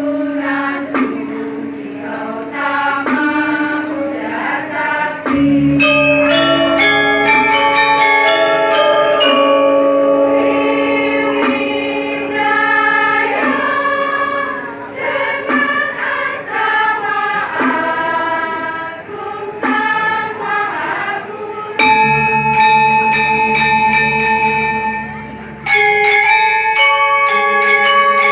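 Choir singing a harmonised piece in held chords, with a deep bass layer joining about five seconds in and again near the end.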